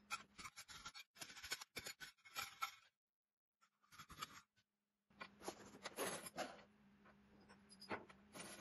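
Irregular metallic taps of a ball-peen hammer striking a steel bracket on an anvil, then, after about five seconds, steel washers clinking and sliding on a wooden workbench as they are sorted by hand, over a faint steady hum.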